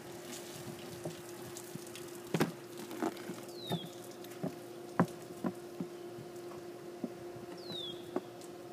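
Scattered short taps and knocks from handling a canvas sneaker and stepping up onto a diving board in it, the two loudest about two and a half and five seconds in, over a steady low hum. A short falling chirp sounds twice.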